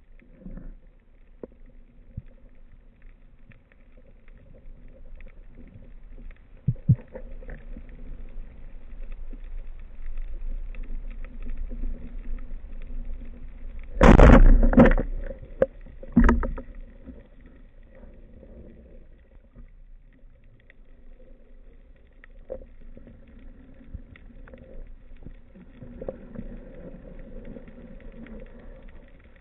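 Band-powered speargun fired underwater: a loud burst about halfway through, then a second sharp knock some two seconds later, over a faint steady underwater hum and hiss.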